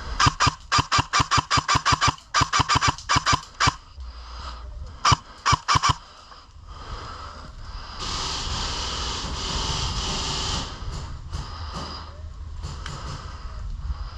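Airsoft gun firing in rapid full-auto bursts, each shot a sharp crack with a ringing tone, several long bursts at first, then short bursts about five seconds in. A few seconds of steady hiss follow, starting about eight seconds in.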